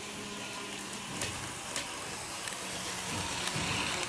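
HO-gauge model diesel railcar (KiHa 58) running past on the track: a steady rolling hiss with a low motor hum that fades in and out, and a few sharp clicks as the wheels cross rail joints.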